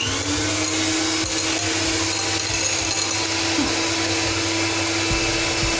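Electric hand mixer whipping egg-and-sugar sponge batter: it comes up to speed at the start, then runs with a steady whine at one pitch.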